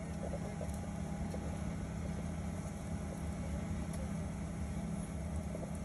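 Steady low hum inside the cabin of a Boeing 737-900 waiting on the ground, the aircraft's engines and air systems running at low power.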